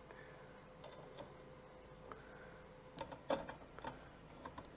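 Faint scattered clicks and knocks of a steel full-motion TV wall mount (Mounting Dream MD2296) as its arms and bracket plate are pushed and moved by hand, with a few louder knocks after about three seconds.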